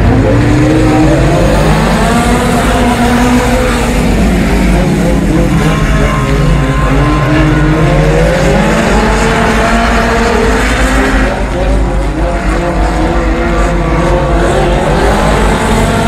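Honda Civic EG hatchback race cars' four-cylinder engines running, revs rising and falling steadily, with several engine notes overlapping.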